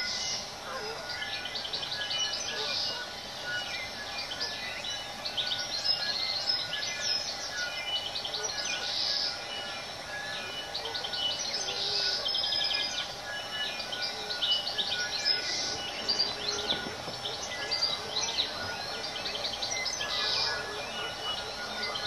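New Zealand bellbirds singing in a dense, overlapping chorus of chirps and trills, with short clear held notes beneath.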